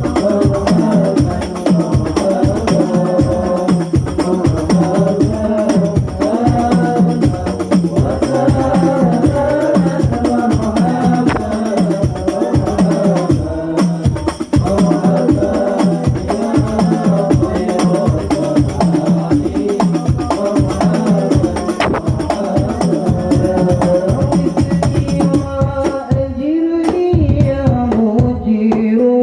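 Devotional sholawat music: a voice singing a melody over fast, steady hand-drum and tambourine rhythm. Near the end the drumming thins out and the voice carries on more freely.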